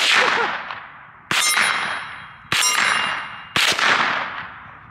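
Four AR-style rifle shots fired at a slow, steady pace, about a second apart, each followed by a long metallic ring that fades away.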